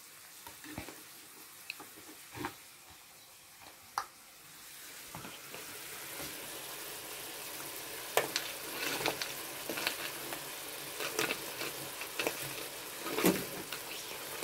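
A few sharp knife clicks on a wooden cutting board, then fillet strips sizzling steadily in a frying pan, with knife scrapes and clicks as a chopped tomato mixture is pushed off the board into the pan.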